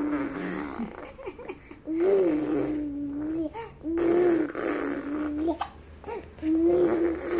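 A young baby cooing: four drawn-out, level vowel sounds, each about a second and a half long, with short pauses between.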